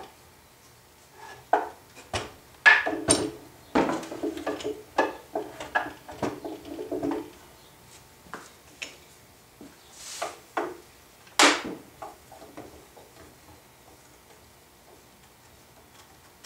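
Wooden handscrews and Bessey rapid-action clamps being handled and tightened on a glued-up wood lamination: a string of wooden clacks and knocks, with a run of quick rattling clicks from about four to seven seconds in, fading to a few light taps after about twelve seconds.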